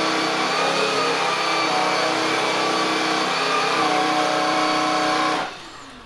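Shark IZ320EUT cordless stick vacuum running at its lowest suction setting, its DuoClean floor head pushed over carpet: a steady motor whine over the hiss of airflow, shifting slightly in pitch as it moves. It switches off about five and a half seconds in.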